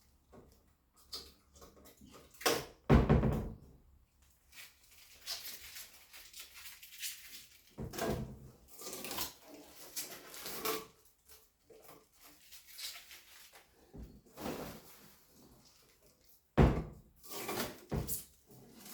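Irregular knocks and thuds from a new double-door fridge being handled as it is unwrapped, with two heavier thumps, one about three seconds in and one near the end.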